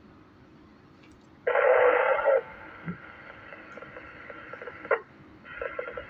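Amateur radio receiver audio during net check-ins. After a low hiss, a loud burst of noise comes in about a second and a half in and lasts about a second. A weak, barely readable transmission follows and ends with a squelch click near 5 s, and another station's transmission begins near the end.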